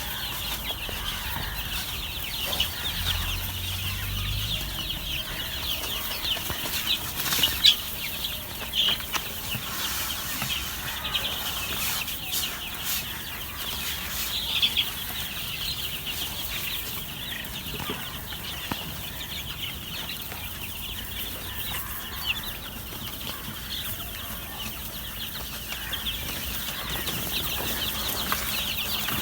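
A brood of week-old chicks peeping together, a dense, continuous chorus of short high chirps, with a few sharp knocks now and then.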